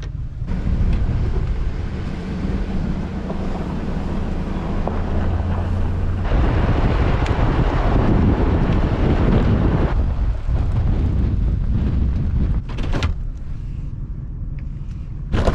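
Wind buffeting the microphone outdoors in cold, gusty conditions, loudest from about six to ten seconds in. For roughly the first six seconds a low, steady engine-like hum runs under the wind.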